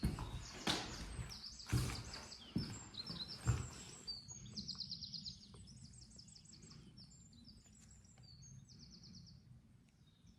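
Footsteps, about one a second, during the first four seconds, then they stop. Birds sing throughout, with rapid high trills that stand out once the steps stop.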